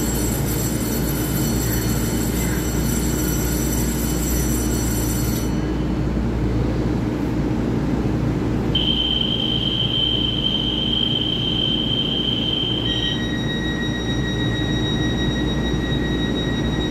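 EMU3000 electric multiple unit standing at a platform with its doors open, its equipment giving a steady low hum. A high whine stops about five seconds in, and about nine seconds in a single steady high-pitched tone sounds for about four seconds.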